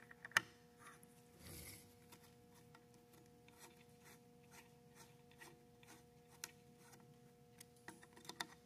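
Faint metal ticks and light scraping of a small flathead screwdriver turning slotted steel bolts up into a pressure-washer gearbox's mounting plate, with one sharper click about half a second in and a few more ticks near the end, over a faint steady hum.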